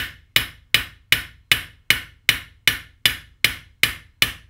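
Hammer tapping the cap of a scythe peening jig at a steady rhythm, about two and a half blows a second. Each blow is a short tap with a brief metallic ring. The blows are drawing out the edge of a high-carbon steel scythe blade.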